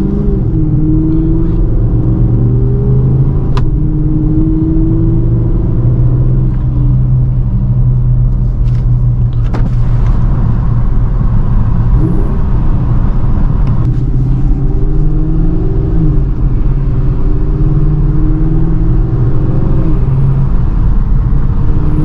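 Dodge Charger R/T's 5.7-litre Hemi V8 running through its modified exhaust while cruising, heard from inside the cabin as a steady drone. Its pitch rises and falls a little with the throttle, and a couple of brief clicks sound early on and about halfway.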